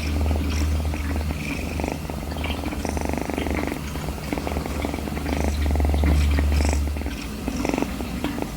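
Kitten purring close to the microphone, a rhythmic pulsing rumble; the deepest part of the rumble drops away about seven seconds in.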